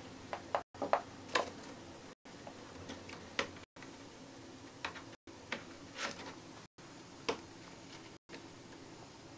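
Scattered light clicks and taps as a hamster moves a long chew across a wooden floor and into a cardboard box, the chew and its feet knocking against the floor and the cardboard.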